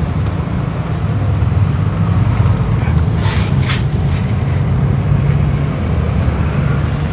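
Steady low rumble of background noise. About three seconds in there is a short rustle, followed by a thin high tone that lasts under a second.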